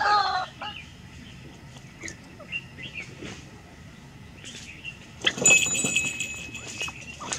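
White-breasted waterhen calling, the call ending about half a second in, then a few faint chirps. About five seconds in comes a sudden burst of wing-flapping and rustling that lasts to the end.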